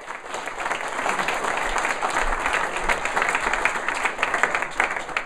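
Audience applauding, a crowd of many hands clapping, dying down near the end.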